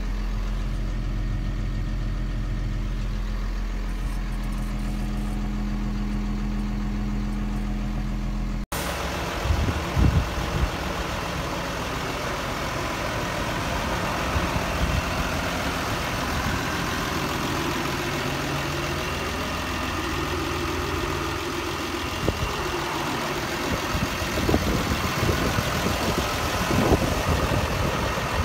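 New Holland tractor's diesel engine running steadily, heard from inside the cab. About nine seconds in it cuts abruptly to a New Holland T7.185 tractor's engine running outside, with a few low bumps on the microphone.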